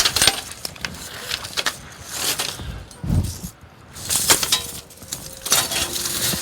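Steel tire cable chains clinking and rattling as they are handled and draped over a truck tire, with a dull low thump about three seconds in.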